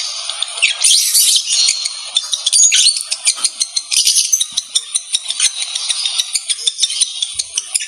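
Lovebirds chattering: a dense, continuous run of rapid, high-pitched chirps, squeaks and clicks. This is the call of a pair in mating condition.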